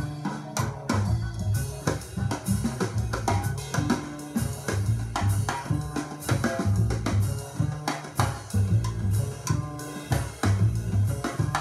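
Recorded music with a drum kit keeping a steady beat over a bass line, played back through Ruark Solstice speakers driven by a Wavebourn Gubernator-71 single-ended valve amplifier.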